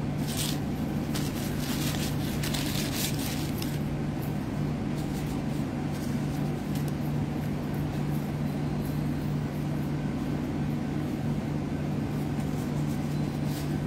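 Steady low machine hum, with brief rustling and crackling in the first few seconds.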